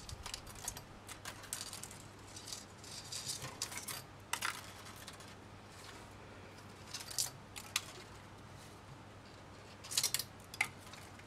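Thin craft wire being wrapped by hand around a wire frame: light metallic scratching and ticking as the wire is pulled through and coiled, in irregular clusters, with a short run of sharper ticks near the end.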